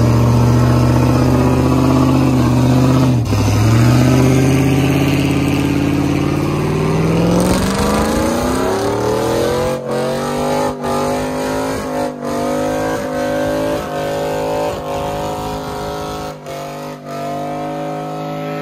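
Chevrolet pickup's engine revving hard in a burnout, the rear tyre spinning. It holds a steady high pitch, climbs higher about eight seconds in, then holds there with several brief drops.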